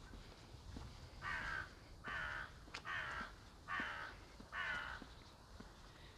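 A crow cawing five times in a row, a little under a second apart.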